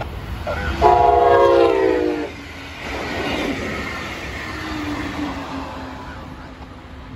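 Brightline passenger train's horn sounding one loud blast about a second in, sagging slightly in pitch, then the steady rush and rail noise of the train going by.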